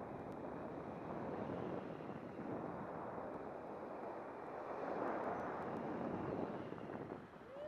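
Airflow rushing over the microphone of a camera held out on a selfie stick in flight under a tandem paraglider: a steady wind noise that dips briefly near the end.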